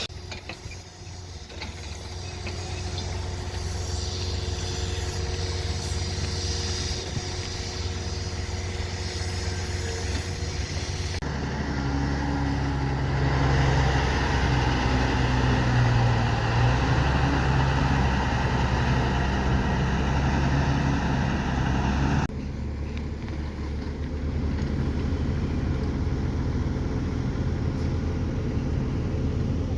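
Heavy construction machine engines running steadily, such as an excavator's or bulldozer's. The sound changes abruptly twice, about 11 and 22 seconds in, as it cuts from one machine recording to another.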